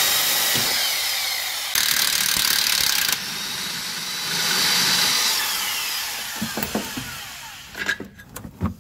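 Snap-on 1/2-inch impact wrench running on a rear shock absorber's mounting bolt, loosening it: a steady, hissy power-tool noise, louder from about two to three seconds in, that trails off after about six seconds. A few short metal knocks and clicks follow near the end as the shock is handled.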